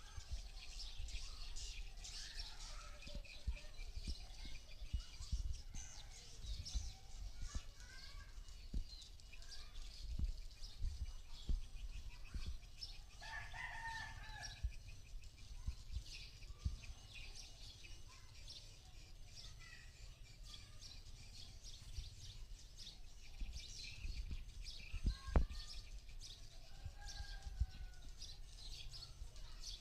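Rooster crowing over a constant high chirping of swiftlets; the clearest crow comes about 13 seconds in, with fainter calls later. Low bumps throughout and a sharp click near the end.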